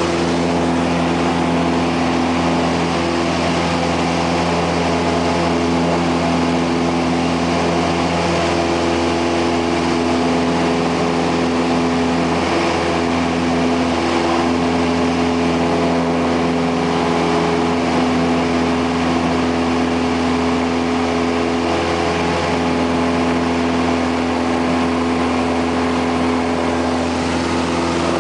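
Piper Cherokee Warrior II's four-cylinder Lycoming engine and propeller running steadily in the climb after take-off, heard inside the cabin as an even drone with a rushing airflow noise.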